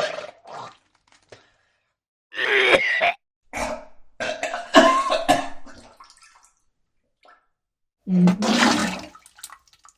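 A person retching and vomiting in four separate heaves with wet, gurgling throat sounds, the longest bout in the middle and the last near the end.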